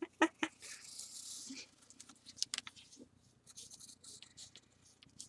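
Quiet scratching of a pencil and pen on paper during sketching: a longer scratchy stroke about a second in, then scattered short strokes and taps.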